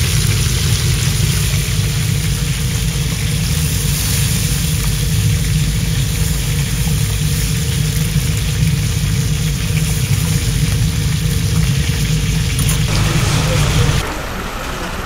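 Fish frying on a commercial gas range: a steady low roar from the gas burners under an even sizzling hiss of hot oil. About fourteen seconds in it cuts off abruptly to a quieter, thinner ambience.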